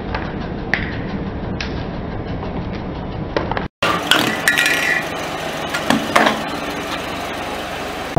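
A car tyre rolling slowly over small items on concrete, with a steady rumble and a few sharp plastic cracks. After an abrupt cut, a tin can is crushed flat under the tyre in several sharp metallic crunches and clinks.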